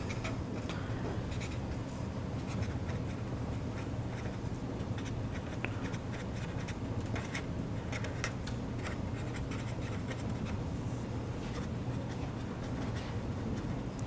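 Pen scratching on paper in short irregular strokes as words are handwritten, over a steady low hum.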